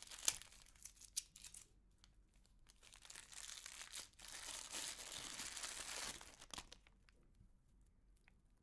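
Clear plastic wrapping crinkling as it is pulled off a cable by hand. There are scattered crackles at first, then a few seconds of steady crinkling that stops about two-thirds of the way through.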